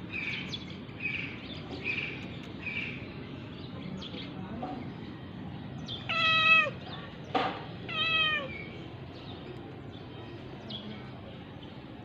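Tabby cat meowing twice, about six and eight seconds in, each meow dropping in pitch at its end, with a short sharp sound between them.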